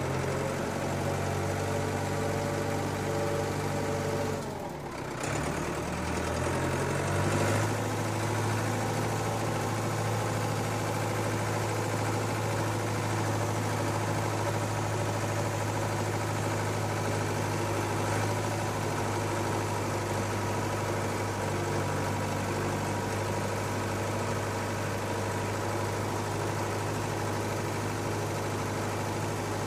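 Tractor engine idling steadily. It dips briefly and shifts in pitch about five to seven seconds in, then runs on evenly.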